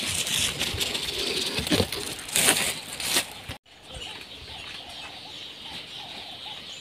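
Chickens: a flurry of wing flapping and scuffling, then, after a short break, faint clucking.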